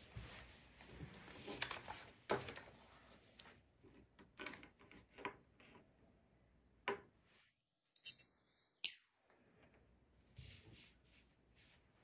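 Faint handling sounds in a small room: scattered soft rustles with a few light taps and clicks.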